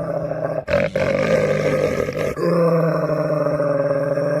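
Dog growling in long, low, drawn-out stretches, breaking off twice.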